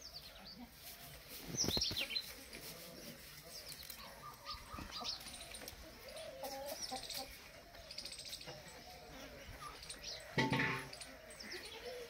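Alexandrine parakeet chicks calling: short, harsh squawks and chirps come every few seconds, with the loudest about two seconds in and again near the end.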